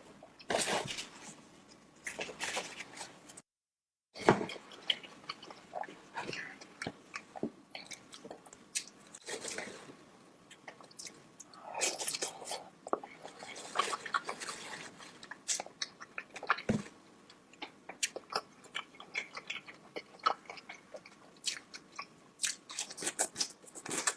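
Close-miked eating sounds: a person biting and chewing sauce-covered seafood and corn, with many sharp crunchy clicks and smacks. The sound cuts out completely for about half a second around three and a half seconds in.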